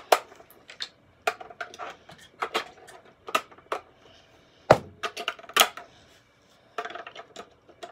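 Irregular clicks, taps and knocks of a toy figure being handled, with a louder knock just under five seconds in.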